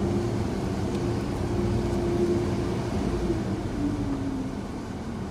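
Steady low mechanical rumble of automated car wash machinery and the idling car, heard from inside the car cabin. A motor hum runs through it and steps down in pitch about four seconds in.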